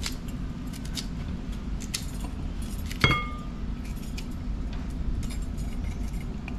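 Knife cutting pieces off a golden apple (June plum) held over a ceramic bowl: light scattered clicks and taps, with one sharp clink that rings briefly about three seconds in. A steady low rumble runs underneath.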